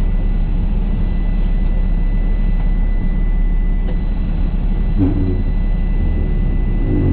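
12-litre Cummins straight-six diesel in a semi truck, running loud and open with its exhaust and aftertreatment removed: a steady deep rumble, described as sounding gnarly.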